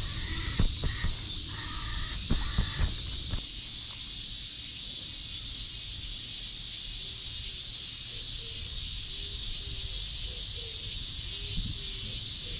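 Cicadas droning steadily in a high, even buzz, with a few footsteps in the first three seconds.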